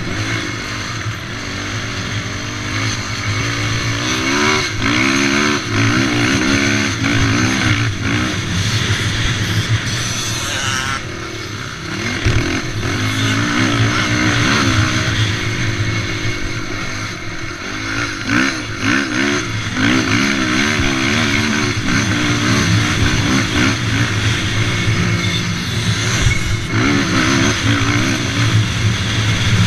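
Racing quad's engine, heard from on board, revving up and falling off again and again as the rider works the throttle and gears around a dirt track.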